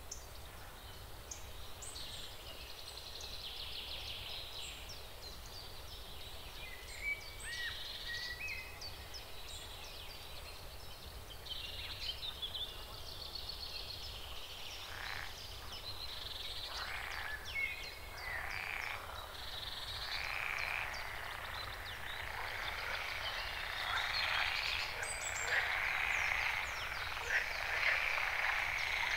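A chorus of animal calls: many short, high chirps and trills, thickening into a denser, louder chorus over the last ten seconds or so.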